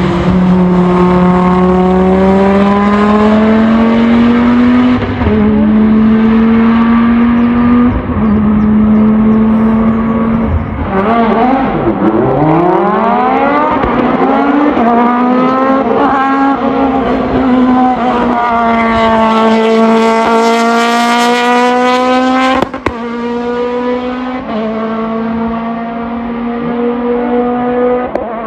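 Race car engine running hard at high revs. Its pitch climbs and drops back at gear changes, dips steeply and climbs again about halfway through, rises to a high rev later on, then cuts off sharply before picking up again.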